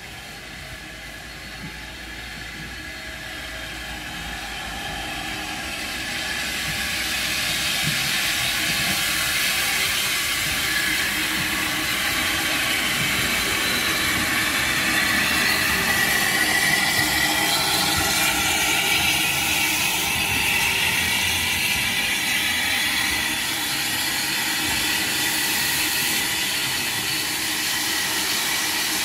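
LSWR T3 class 4-4-0 steam locomotive, built 1893, moving slowly with a steady steam hiss. The hiss grows louder over the first several seconds as the engine approaches, then holds steady as it draws alongside.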